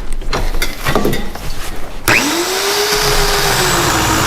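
A few knocks and clicks of handling, then about two seconds in the Portland 9-amp 14-inch electric chainsaw's motor switches on: a whine rises quickly to a steady pitch and the saw runs on, its pitch sagging slightly as it works.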